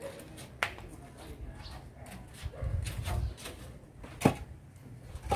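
Concrete hollow blocks knocking as they are handled and set down, with three sharp knocks: one about half a second in, the loudest a little past four seconds, and another near the end. A low rumble runs in the middle.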